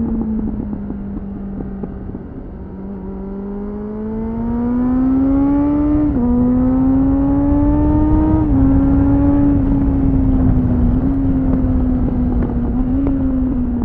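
2001 Suzuki GSF600 Bandit's inline-four engine through a BOS slip-on exhaust, heard from on the bike as it accelerates. The engine note climbs, drops sharply at upshifts about six and eight and a half seconds in, holds, then falls away near the end as the throttle closes. Wind rushes over the microphone underneath.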